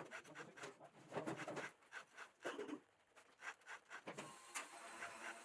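Faint, irregular rubbing and scraping strokes of a hand tool against the cutting teeth of a Husqvarna 550 XP chainsaw's chain, several of them a few tenths of a second long.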